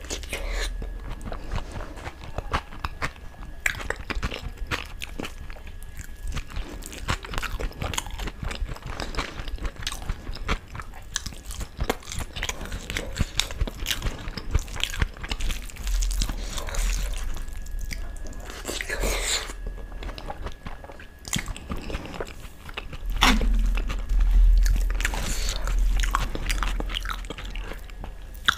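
Close-miked eating of dal and rice by hand: fingers squishing and mixing the wet rice and dal, with chewing and mouth smacks in a dense, irregular patter.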